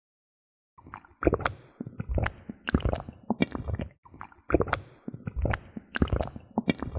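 Close-miked gulping of cola: wet swallows and mouth clicks with a low gurgle. The same three-second stretch of gulping plays twice in a row.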